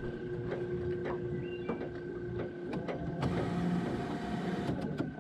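Spinning reel being cranked to retrieve a lure, its gears giving a steady whir with scattered clicks; the whir shifts higher a little past halfway.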